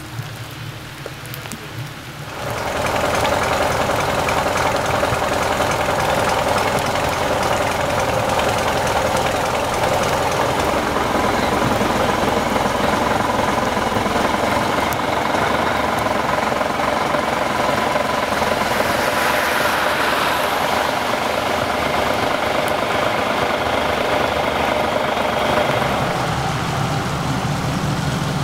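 A vehicle engine idling steadily, coming in suddenly about two seconds in.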